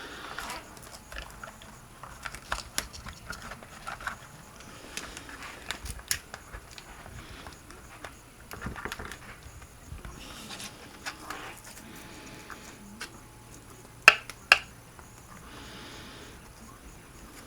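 Handling noise of a soft-pack LiPo battery and foam padding being pressed into a plastic RC-truck battery tray: scattered small clicks, taps and rubbing, with two loud sharp clicks in quick succession late on.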